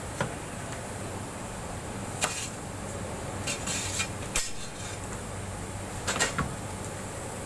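A metal baking rod clinking and knocking against the mouth of a dome bread oven as flatbread is worked in and out, a handful of sharp strikes spread through, over a steady hum.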